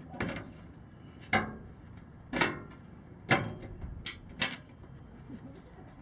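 Handling knocks from fitting a screw by hand into an aluminium catalytic-converter shield under a car: about six short, sharp knocks and clacks, roughly one a second, dying away to faint clicks in the last second or so.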